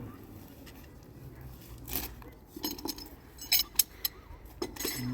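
Irregular clinks and knocks of hard objects being handled, with a few sharp, loud clicks a little past the middle.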